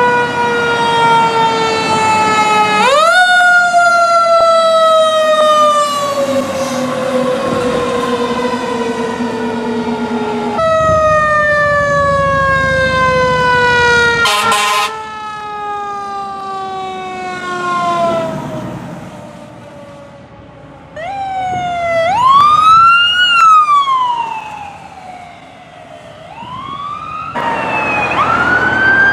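Fire truck sirens wailing across several short clips. Each wail climbs quickly in pitch and then falls slowly; in the last third the rises and falls come faster.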